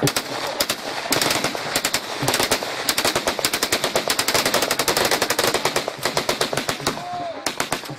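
Several rifles fired into the air together in rapid, overlapping gunfire: a few shots at first, then a dense run of many shots a second from about a second in, thinning out near the end.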